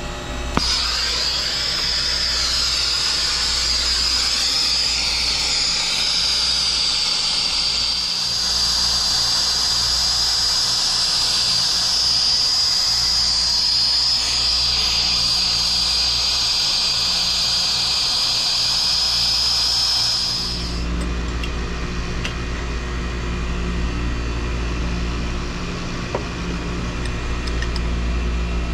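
Brazing torch flame hissing steadily on a copper refrigerant line joint, shut off suddenly about twenty seconds in. A low steady hum runs underneath and is plainer once the torch is off.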